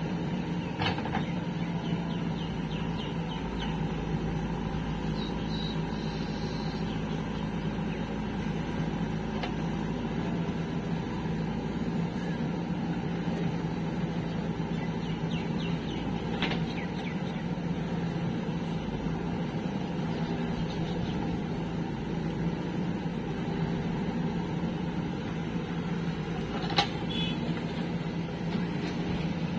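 Diesel engine of a JCB 3DX backhoe loader running steadily while it loads soil into a tractor trolley, with a few short knocks.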